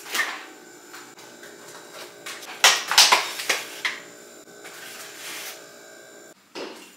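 Clear plastic food containers knocking and rustling as they are handled, with a clatter near the start and a louder cluster of knocks about three seconds in, over a faint steady hum.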